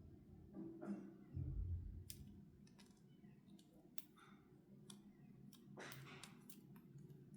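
Faint, scattered clicks and taps of small plastic toy pieces and packaging being handled, with a soft low thump about one and a half seconds in.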